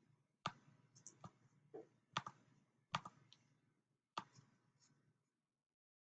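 Computer mouse clicking: about eight short, sharp clicks at irregular intervals, the clearest about half a second, two, three and four seconds in, then stopping.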